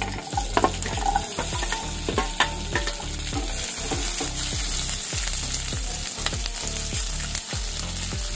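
Chopped onions sizzling as they hit hot oil in a kadhai, stirred with a perforated steel skimmer that clicks and scrapes against the pan over the first few seconds.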